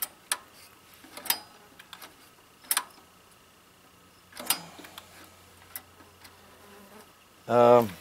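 A few sharp clicks and taps from the throttle linkage and carburetor of a 1967 Sears Super 12 garden tractor being handled, its engine not running. Near the end an insect buzzes loudly close to the microphone for about half a second.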